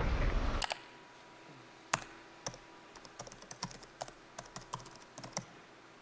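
Computer keyboard typing: scattered single key clicks at an uneven pace, the soundtrack of a played video in which a chat message is typed out. A louder sound cuts off suddenly under a second in, before the typing starts.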